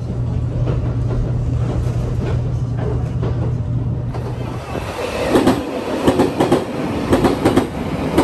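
A train running on rails, with a steady low hum for the first four and a half seconds, then wheels clattering over rail joints in repeated knocks.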